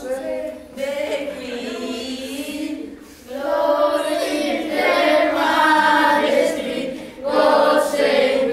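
A group of young people singing together without accompaniment, in held phrases with short breaks about three and seven seconds in.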